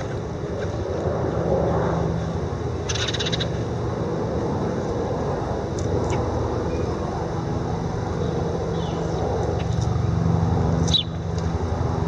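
Steady low rumble of city traffic, with a few short, high bird chirps over it, one about three seconds in and a quick rising one near the end.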